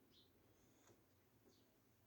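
Near silence: room tone with a few faint, short high-pitched blips.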